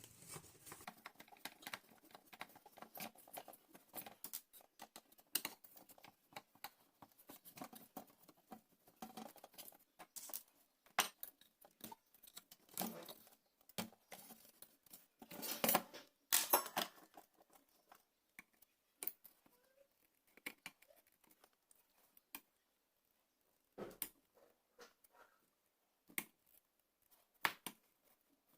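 Scattered small clicks, taps and scrapes of hand tools working on a circuit board while shorted transistors are desoldered and pulled out. There are a few louder scraping bursts about halfway through, and the ticks grow sparser after that.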